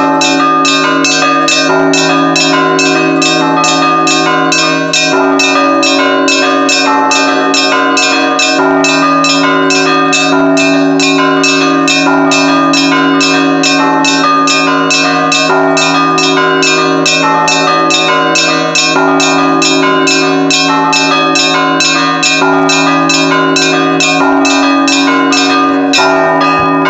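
A set of church bells rung by one bell ringer in a fast, repeating rhythm of about four strikes a second, with the low tones of the bigger bells humming on underneath.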